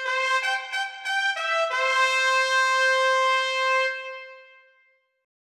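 Solo trumpet playing a few short notes, then one long held note that fades out about four and a half seconds in.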